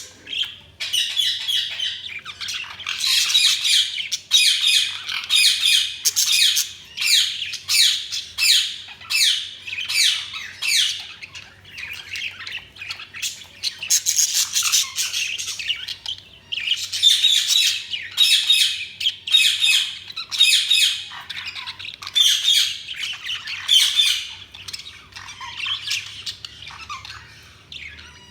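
Budgies (budgerigars) chirping and squawking in rapid, overlapping strings of calls, pausing briefly twice and tapering off near the end.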